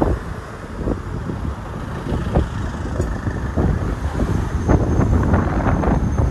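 A car driving along a town street, its road and engine noise heard under uneven wind buffeting on the microphone.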